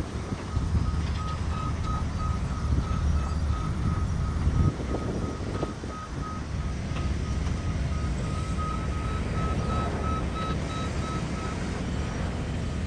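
Back-up alarm of a construction machine on a demolition site, a steady string of short beeps at one pitch that stops near the end, over a low rumble.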